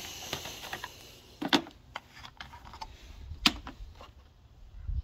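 Hand work in a car's engine bay: a plastic reservoir cap and a plastic bottle of brake fluid being handled, giving a few sharp clicks and knocks with light rustling. The loudest knocks come about a second and a half in and again about three and a half seconds in.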